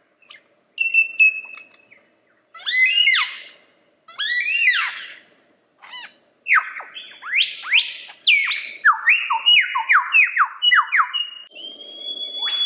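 Lyrebird singing a varied run of loud phrases. It starts with a short steady whistle, then two sweeping warbled phrases, then a fast series of whistled notes that each fall in pitch, and near the end one long held whistle.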